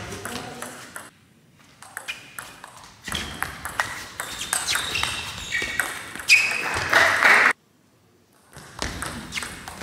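Table tennis rally: the plastic ball clicks sharply and in quick alternation off the rackets and the table. A louder, noisier burst comes just as the rally ends. The sound drops out briefly twice.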